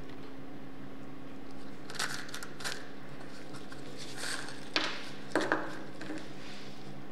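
Rusty steel screws clinking and rattling in a small plastic cup as it is tilted and they are tipped into a gloved hand: a handful of sharp clicks, the loudest about five seconds in. A steady low hum runs underneath.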